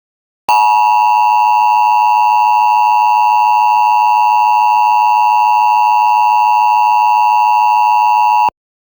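Emergency Alert System attention signal: a loud, steady two-tone alarm tone starting about half a second in and held unchanged for about eight seconds before cutting off abruptly.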